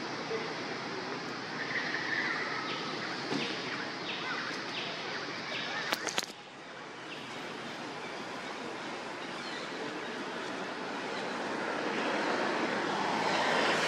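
Steady outdoor background noise with a few faint high chirps and a sharp double click about six seconds in.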